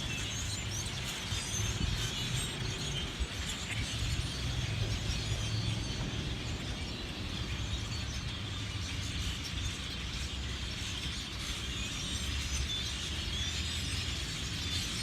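Dense, steady chatter of a large flock of birds calling as they gather to roost in bamboo, with a low steady hum underneath.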